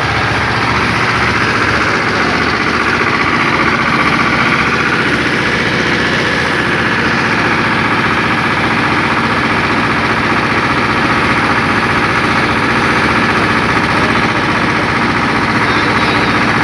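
Engine of heavy road-construction machinery running steadily at a constant speed.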